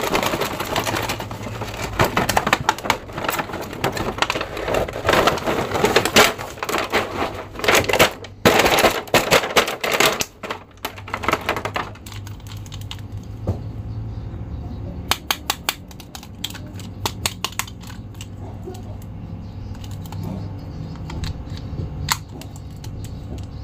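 Stiff clear plastic blister packaging crinkling and crackling as an action figure is worked free of its tray, dense for about the first half. It then goes quieter, with a run of sharp small plastic clicks.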